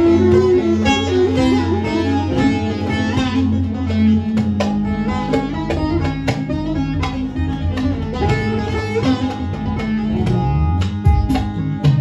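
A bağlama (Turkish long-necked saz) is played with a plectrum in a fast instrumental passage of quick plucked notes over a steady low backing.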